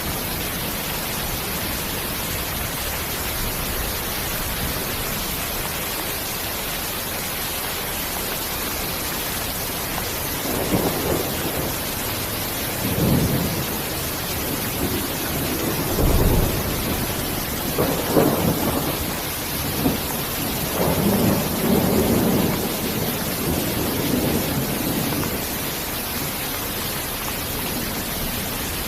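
Steady heavy rain hissing, with several low rolling rumbles of thunder swelling and fading through the middle.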